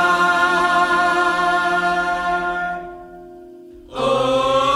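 Background song: voices hold a long sung note in harmony, fading out about three seconds in, then the singing comes back about a second later.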